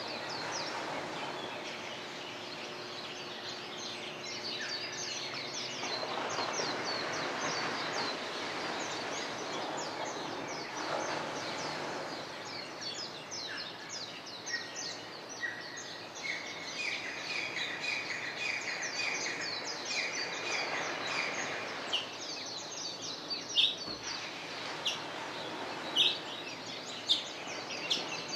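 Morning chorus of many birds chirping and twittering over a steady background rush. Midway there is a quick repeated trill, and near the end a few sharp, louder calls.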